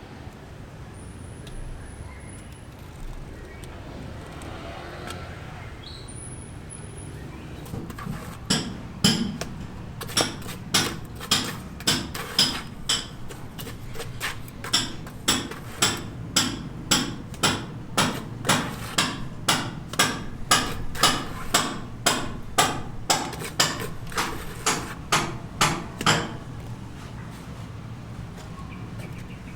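A hammer striking repeatedly and evenly, about two blows a second, for roughly eighteen seconds. The blows start about eight seconds in and stop a few seconds before the end.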